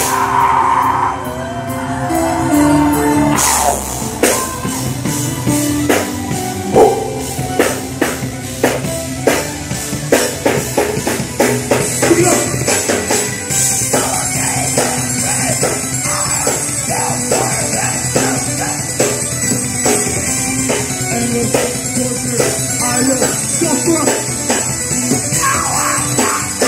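Loud live rock band playing, with fast, hard-hit drums, heavy instruments and shouted vocals. About halfway through, a steady wash of cymbals joins in.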